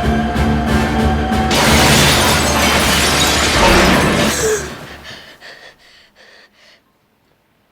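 Film sound of a train crash: loud crashing and shattering over orchestral score, dying away about four and a half seconds in. A few faint clinks of settling debris follow, then near silence.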